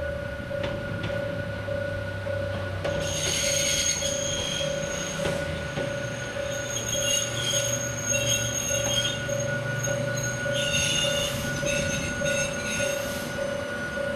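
Hakone Tozan Railway mountain train passing, its steel wheels squealing on and off through the curve from about three seconds in, over a low motor and running rumble. A warning bell rings about twice a second throughout, as at a level crossing.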